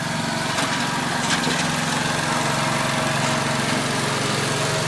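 Riding lawn mower engine running steadily, with a couple of faint ticks about a second in.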